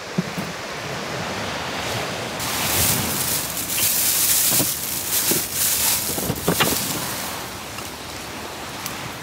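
Sea waves washing onto the beach: a rush of surf that swells about two seconds in and slowly fades, with a few sharp clicks on top.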